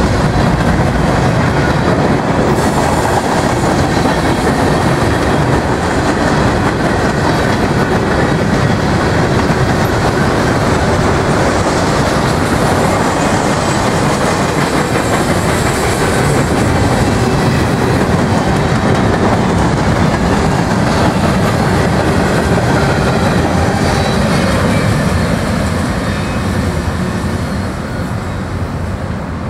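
Freight cars of a long mixed manifest train rolling past on steel wheels, a steady loud rumble and rattle of hoppers and tank cars going by. It begins to fade a few seconds before the end as the train moves away.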